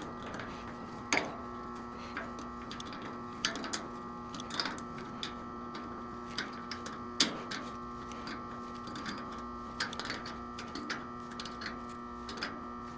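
Irregular clicks and taps of tools and metal parts while a condenser fan motor is fitted, over a steady mechanical hum.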